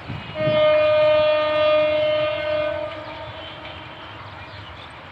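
An approaching mail train's locomotive horn sounds one long blast of about two and a half seconds, a single steady pitch, then fades away.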